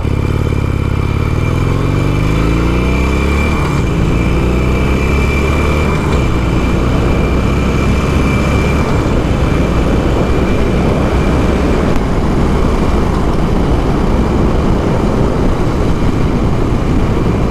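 Harley-Davidson Iron 883's air-cooled V-twin pulling away from a stop, rising in pitch as it accelerates through the first few seconds, then running steadily at cruising speed under heavy wind and road noise.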